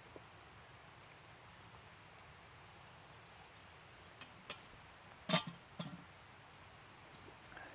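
A few light clicks and one sharper knock a little past halfway, from a black metal camp kettle being handled and set down after pouring into a steel mug.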